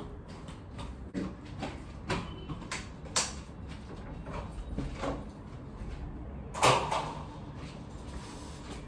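Scattered household knocks and clicks, like a door or cupboard being moved, with the loudest knock about two-thirds of the way in.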